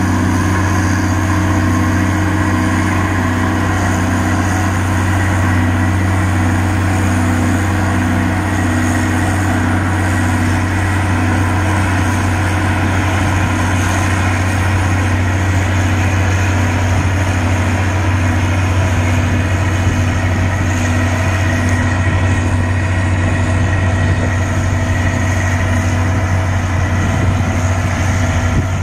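Engine of an Amphibex amphibious icebreaker running steadily: a constant low drone with fainter steady tones above it, unchanging throughout.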